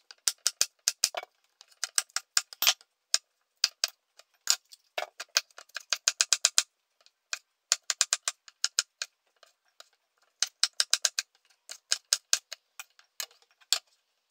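Chef's knife chopping a green bell pepper on a plastic cutting board: runs of quick, sharp knocks, several a second, broken by short pauses.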